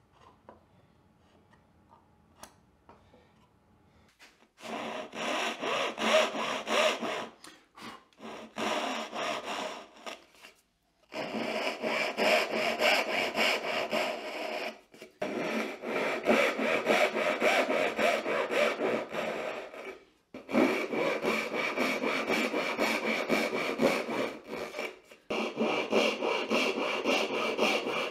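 Backsaw cutting dovetails by hand in an alder board: several bouts of quick, even rasping strokes with short pauses between them. Before the first cut, about four seconds in, there are only a few faint ticks.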